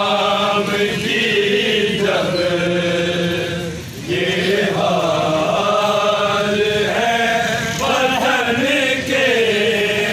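Men's voices chanting a Urdu mourning lament (soz) in long, drawn-out melodic lines, with a short break about four seconds in.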